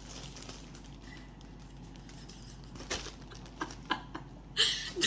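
Plastic poly mailer bag being handled and worked at to open it: soft rustling with a few light clicks and scrapes, then a louder crinkling burst near the end.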